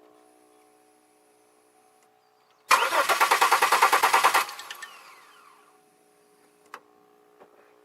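A 2002 Chevy Malibu's 3.1-litre V6 cranking on the starter for under two seconds with an even beat of about seven pulses a second, then the starter winding down with a falling whine, the engine not catching. It is a crank-no-start: the owner has spark, but the fuel injectors are not firing.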